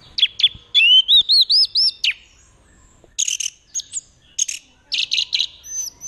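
Orange-headed thrush singing: a quick run of about six rising-and-falling whistled notes, then clusters of sharp chirped notes, ending in a falling whistle.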